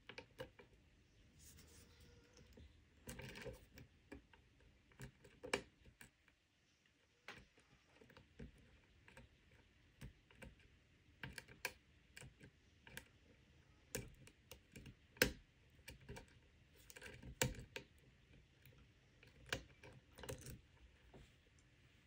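Lock pick and tension wrench working the pins of an ERA six-pin euro cylinder: faint, irregular small metal clicks and scrapes, a few louder than the rest.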